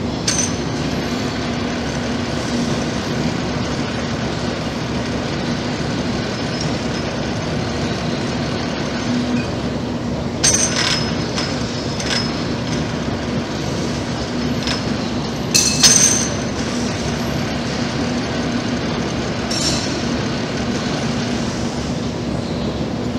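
Hypro vertical boring and turning mill with its large worktable turning: a steady mechanical rumble and hum. Brief metallic squeals and clinks come a few times, the loudest about two-thirds of the way through.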